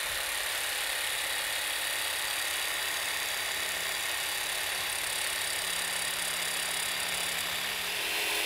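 Jigsaw running steadily as it bevel-cuts PVC trim board along a scribe line. Its note shifts slightly near the end.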